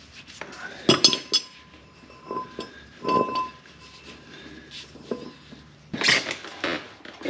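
Metal parts and tools being handled: several clinks and knocks, with the sharpest about a second in followed by a brief metallic ring.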